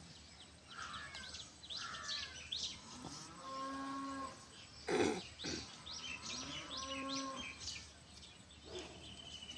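Cattle mooing twice, each a long steady call about a second long, over frequent bird chirps. A brief loud noise comes about halfway through.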